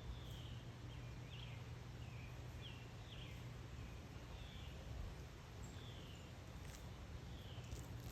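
A bird repeating short, high, falling chirps every second or so over a faint steady low hum of outdoor background noise.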